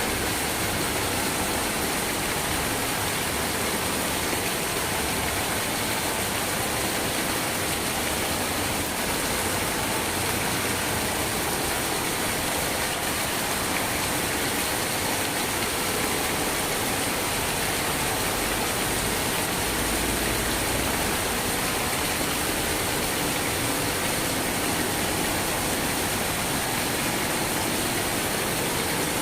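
Steady rain falling: an even, unbroken hiss with no letup.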